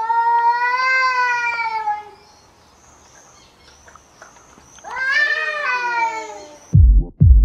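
Two cats in a standoff caterwauling at each other: two long, drawn-out yowls of about two seconds each, a few seconds apart, the threat calls of cats squaring off to fight. Near the end electronic dance music with a heavy beat cuts in.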